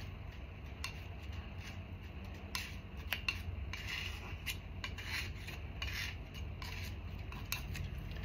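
Oil paint being mixed on a palette: irregular soft scrapes and faint clicks as white is worked into a flesh tone to lighten it, over a low steady hum.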